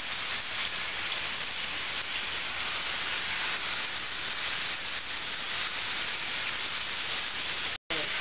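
Marinated chicken leg pieces sizzling steadily as they fry in hot oil in a nonstick frying pan; the sound cuts out for an instant near the end.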